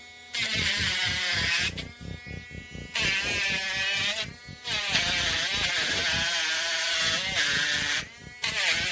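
A small cordless rotary tool motor running at high speed in several bursts, its whine sagging and recovering as the bit bears on the work, with a grinding hiss over it.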